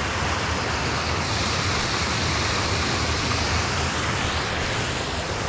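Steady rush of water pouring through a spillway and over rocks in the creek below it.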